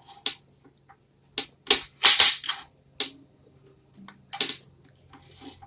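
Knife chopping carrots in half on a cutting board, with the pieces dropped into a plastic cooking pot: a series of sharp, irregular chops and clacks.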